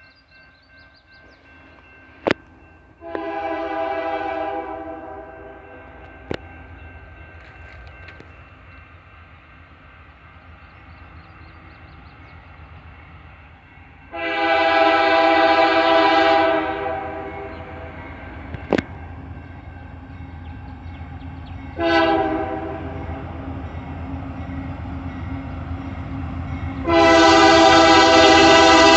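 Union Pacific diesel locomotive's air horn sounding four blasts: long, long, short, long, the standard grade-crossing signal. The last blast is the loudest, and the locomotives' low rumble grows as the train draws near. There are a few sharp clicks along the way.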